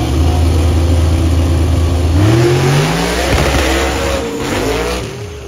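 Small-tire drag cars, one a Fox-body Mustang, hold a steady high-rpm rumble at the starting line, then launch about two seconds in. The engine pitch rises through the gears, then fades as the cars pull away down the track.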